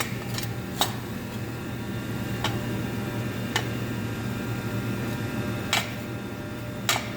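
A steady low hum with about half a dozen sharp clicks at irregular intervals.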